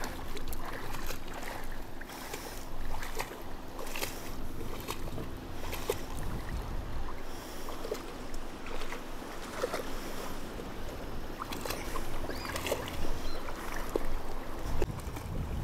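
Shallow river water splashing and lapping, with scattered small splashes, as of someone wading.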